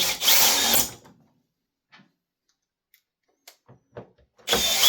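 Cordless drill/driver running in two short bursts of about a second each, one at the start and one near the end, driving the cover bolts back into a leaf blower, with a few light clicks of handling between.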